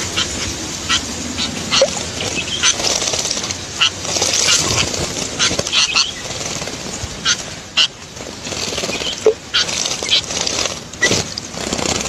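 A group of small songbirds chirping, many short sharp calls overlapping at an irregular pace, with water splashing as they bathe.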